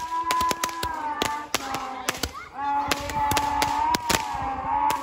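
Fireworks going off: many sharp cracks and bangs in quick, irregular succession, over a sustained, slowly wavering pitched tone in the background.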